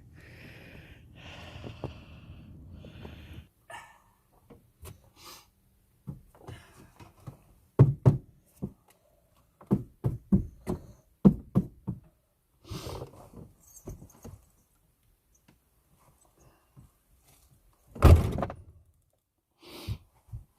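Scattered knocks and thunks of a van door and things being handled, with the loudest thud about eighteen seconds in.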